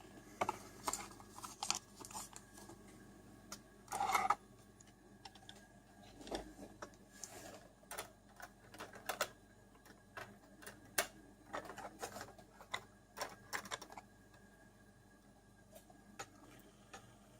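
Hands handling a small model-train box and its packaging: scattered light clicks, taps and rustles, with a somewhat louder rustle about four seconds in.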